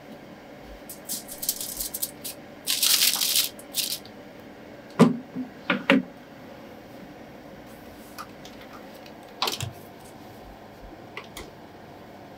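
Aluminium foil crinkling as it is pressed over a baking terrine, loudest about three seconds in. Then the metal water-bath tray knocks twice as it is set back into the oven, and there is another knock about two thirds of the way through, over a steady oven hum.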